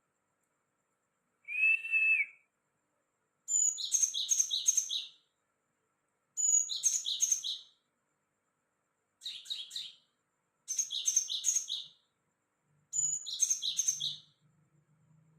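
A gelatik songbird singing: one clear whistled note, then five short buzzy trilled phrases, each a second or so long, with pauses between them, in the cricket-like song it is known for.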